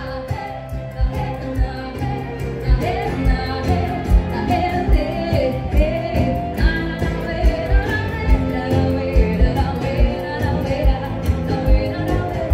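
Pop-rock song: a woman singing over electric guitar and a steady kick-drum beat.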